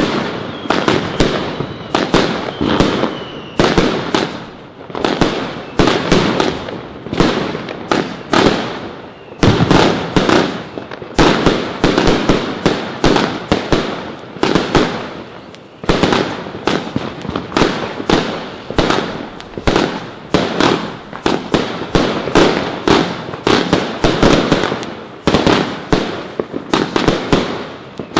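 Royal Fireworks 'Fireworks for all' consumer fireworks cakes firing a continuous barrage: sharp bangs of shots and aerial bursts, about two a second, each dying away in a short tail.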